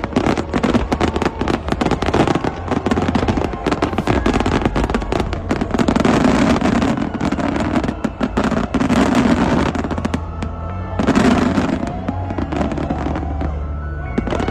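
Fireworks display: a dense run of rapid bangs and crackles that thins out after about ten seconds, with music playing alongside.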